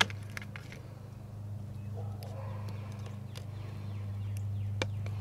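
A red Scotch tape dispenser set down on a wooden workbench with one sharp click. Then tape is pressed onto a plastic bottle, with a few light ticks and faint crinkling over a steady low hum.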